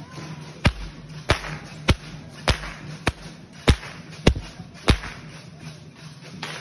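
Dancers' hand whips (chicotes) cracking in a steady rhythm: about eight sharp cracks, a little under two a second, stopping about five seconds in.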